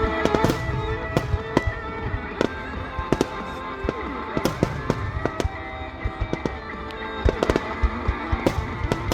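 Fireworks going off in quick, uneven succession, many sharp bangs and crackles, some in rapid clusters, over steady music.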